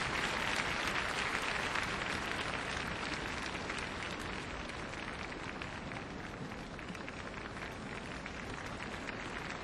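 Large arena crowd applauding, a dense patter of many hands clapping that slowly dies down.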